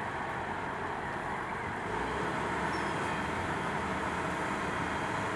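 Komatsu PC130 excavator's diesel engine running under work, a steady dense rumble that grows louder and deeper about two seconds in as the machine takes on load.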